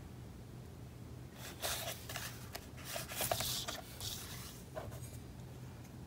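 Sheet of patterned cardstock being slid and repositioned by hand on a paper trimmer: a few soft paper rustles and scrapes.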